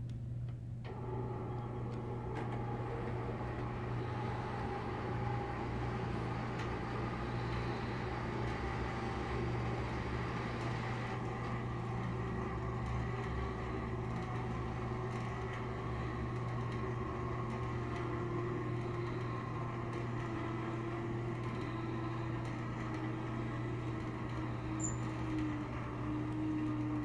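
Steady city background noise heard from inside a high-rise room: a constant low hum under the wash of distant street traffic, with faint engine tones drifting slowly in pitch.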